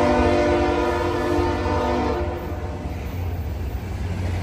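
A locomotive horn sounds a long chord of several tones that stops about two seconds in, over the steady low rumble of freight cars rolling past.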